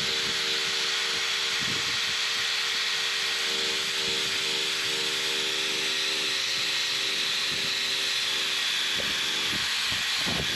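Drill spinning a rubber eraser wheel against a boat hull, stripping old vinyl lettering: a steady motor whir under an even rubbing hiss.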